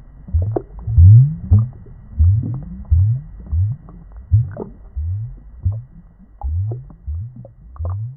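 Aquarium water bubbling and gurgling: a steady run of low blub sounds, each rising in pitch, about two a second.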